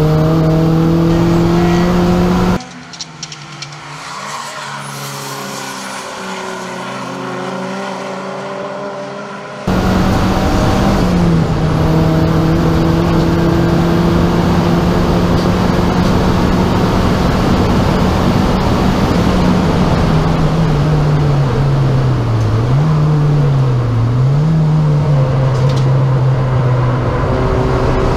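Turbocharged four-cylinder engine of a Rover 200 Turbo (Tomcat) race car running hard on track, heard from inside its stripped cabin. The engine note holds fairly steady, goes abruptly quieter and muffled for about seven seconds early on, and near the end its pitch dips and recovers twice.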